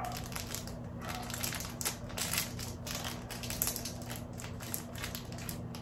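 Crinkling and rustling of packaging as a makeup brush is handled and unwrapped, in short, irregular scratchy sounds.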